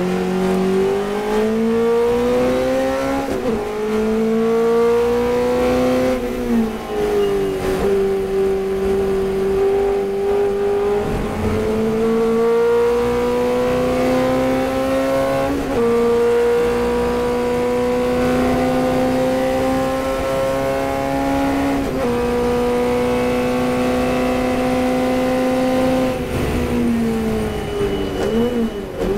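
Chevron B8 racing car's engine at full throttle, heard from inside the cockpit. The note climbs steadily through each gear and drops sharply at each change or lift, about five times.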